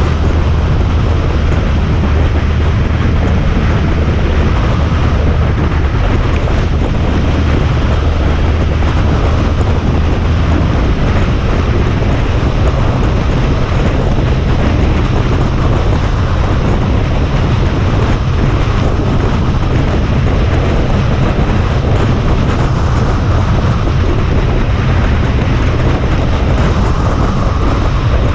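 Steady wind rushing over a helmet- or bike-mounted GoPro microphone, over the low drone of a Honda ST1300 Pan European's V4 engine cruising at road speed. The low engine note changes about ten seconds in.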